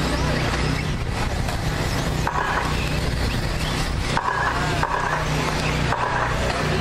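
Radio-controlled short course race trucks running around the track, with brief motor whines as trucks pass close, over a steady low hum.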